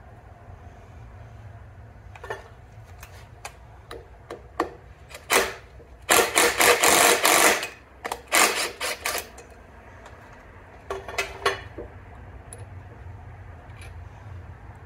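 Cordless DeWalt impact driver hammering on the bolt that holds the bevel gear and shaft in a Simplicity bevel gearbox, backing it out. It runs in short bursts with one longer run of about a second and a half, plus a few light clicks of the tool being fitted before it.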